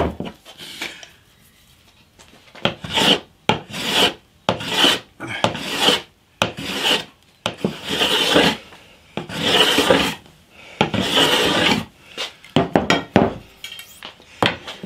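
Metal hand plane shaving a rosewood fretboard, a run of about ten strokes roughly a second apart, the middle ones longer. Each stroke takes a thin shaving off the fretboard to work it down to its radius.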